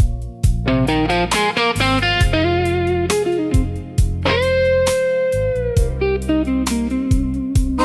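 Slow blues instrumental break led by electric guitar, over a steady beat of bass and drums. About four seconds in, one note is bent and held for over a second.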